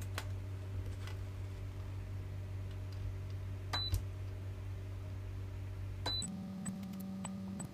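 A steady low electrical hum with a few faint clicks. About six seconds in, the hum shifts abruptly to a thinner, higher tone.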